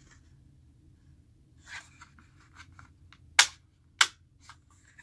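Plastic parts of a phone charging stand being handled and fitted together: soft rustling and small ticks, then two sharp clicks about half a second apart, a little over three seconds in.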